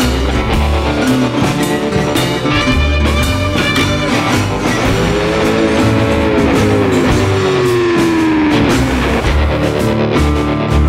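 Rock music with electric guitar and drums, the guitar playing long bending, sliding notes.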